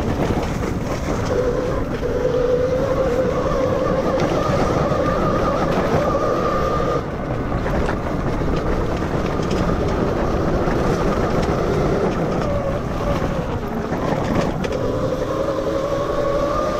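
Electric dirt bike's MG160A 12 kW motor whining as it is ridden, over a steady rushing noise. The whine's pitch rises slowly with speed, drops away about seven seconds in, and climbs again near the end.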